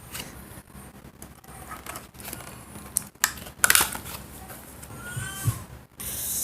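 Handling noises as items are taken from a package: scattered clicks and rustling, with a few loud sharp clicks about three and a half seconds in and a short rising-and-falling tone near the end.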